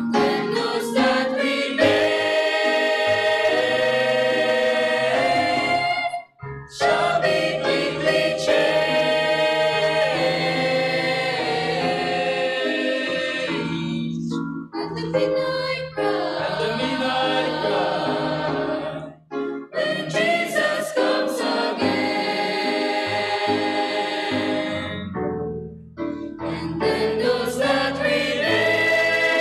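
Mixed church choir singing a gospel song in harmony, holding long chords, with short breaks between phrases.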